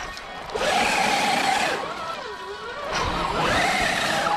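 Whine of a 1/10-scale SCX10-based RC crawler's 2300kv brushless motor and gear transmission, rising and falling in pitch twice as the throttle is worked on a very steep climb.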